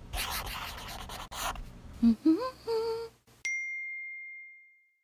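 Logo-animation sound effects: scratchy swishes, then a few short notes gliding upward, then a single bright ding about three and a half seconds in that rings out and fades.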